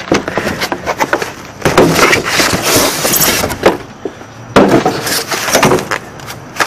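A boxed pair of 6x9 car speakers and their white packing insert being handled and shifted about on a car's rear parcel shelf: repeated knocks and clicks with two longer spells of scraping and rustling.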